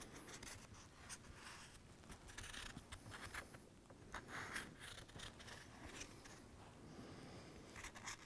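Faint, short, uneven scratching strokes of a Sharpie marker drawn on cardboard, tracing around the outline of an electrical component held on the sheet.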